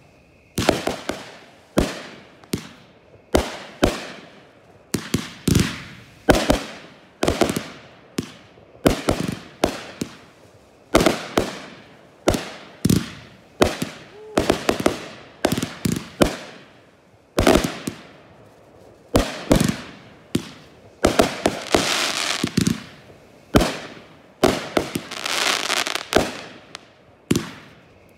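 Consumer aerial fireworks bursting in quick succession, sharp bangs about one to two a second, each fading away after the report. Two denser, longer stretches of overlapping bursts come about three quarters of the way through and again near the end.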